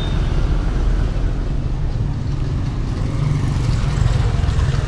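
Street traffic passing close by: a pickup truck and motorcycles driving over cobblestones, giving a steady low rumble of engines and tyres that swells slightly as a motorcycle goes past near the end.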